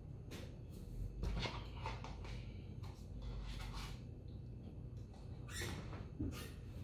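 A man breathing hard in short, noisy puffs through his mouth, in bursts that come and go, a reaction to the burning of a Carolina Reaper chili in his mouth.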